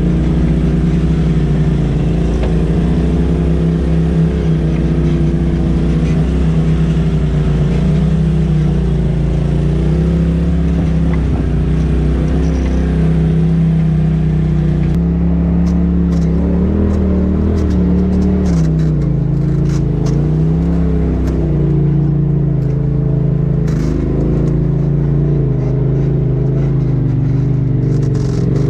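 Side-by-side UTV engine running at low revs that rise and fall gently as it crawls a rough dirt trail, heard from inside the cab. In the second half, scattered knocks and rattles from the machine bouncing over ruts are added.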